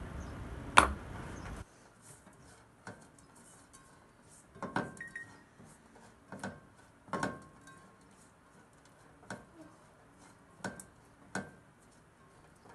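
Silicone spatula knocking and scraping against a frying pan while stirring diced food: about eight separate short clinks and knocks, a second or so apart. It opens with a loud burst of noise lasting about a second and a half that cuts off suddenly.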